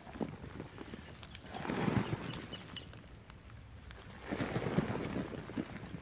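Two bouts of rustling and scuffing, about two seconds in and again near five seconds, as someone moves about on soil among undergrowth, over a steady high-pitched insect drone.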